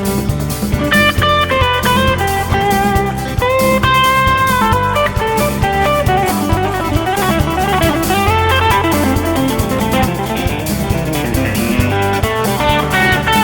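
Instrumental break of a song: a guitar plays a melodic lead over bass and a drum kit.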